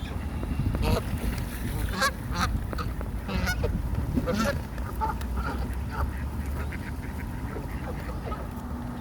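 Geese honking: a run of short calls in the first five seconds or so, then fewer, over a steady low rumble.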